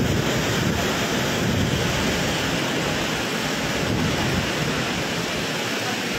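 Typhoon wind howling with torrential rain, a steady loud rush with gusts buffeting the microphone in a low rumble.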